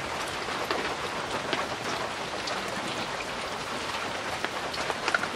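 Wood fire crackling under a pan of hot oil, with a lump of ash gourd leaf and lentil batter sizzling as it fries as a pakora; a steady crackling hiss with many small scattered pops.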